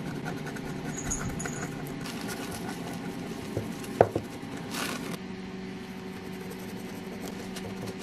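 Steady hum of running bench equipment, with light tool ticks, a sharp click about four seconds in and a short hiss just after, as a circuit board is cleaned.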